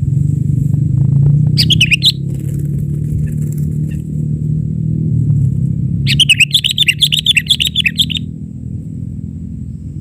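Sooty-headed bulbul calls: a short bubbly phrase about a second and a half in, then a longer chattering run of quick notes about six seconds in. A steady low hum runs underneath.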